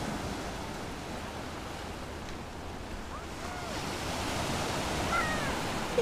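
Small Black Sea waves breaking and washing up over a pebble beach, the surf swelling louder about four seconds in.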